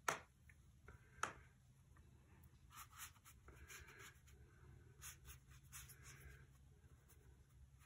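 Faint brush strokes: a wide flat hake brush swishing paint across damp watercolour paper in a series of short strokes, after two sharp taps about a second apart near the start.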